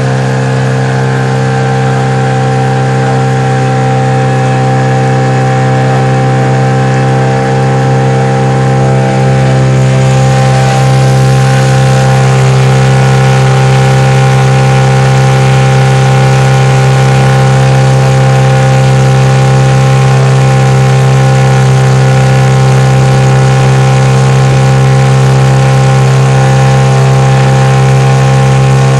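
Motorboat engine running steadily at a constant speed, a little louder from about ten seconds in.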